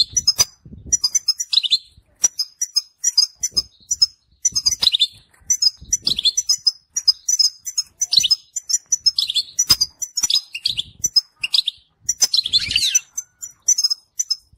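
European goldfinch singing: a fast, continuous run of high twittering chirps and short trills, phrase after phrase with brief pauses between them.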